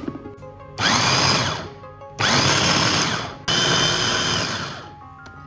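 Electric food chopper's motor run in three short pulses, each starting sharply, whirring about a second and then winding down, as it minces a wet pork and bok choy filling.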